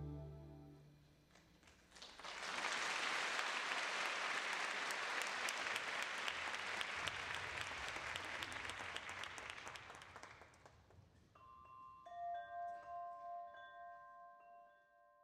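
Audience applause: many hands clapping, starting about two seconds in and fading away after about eight seconds. Then a few soft, ringing chime-like tones sound and die away.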